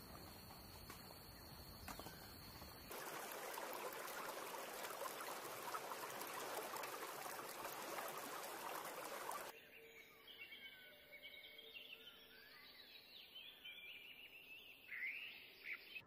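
Outdoor ambience in three parts: first a steady high-pitched whine over a faint hiss, then about six seconds of even rushing noise, then several small birds chirping and calling in short gliding notes, loudest near the end.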